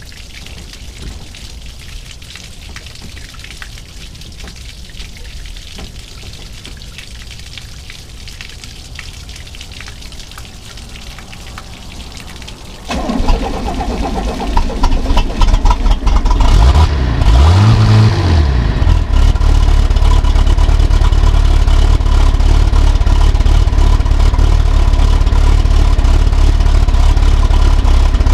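Water hissing from a garden hose feeding the outboard's lower unit. About halfway through, the 1969 Mercury 160 hp outboard cranks and fires on a cold start, revs up and back down once, then runs steadily.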